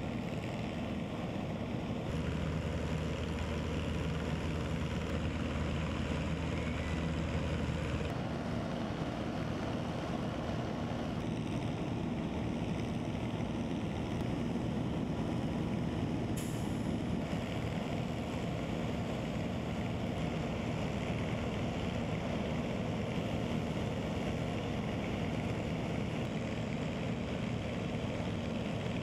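Fire engines idling: a steady low engine rumble with a constant hum.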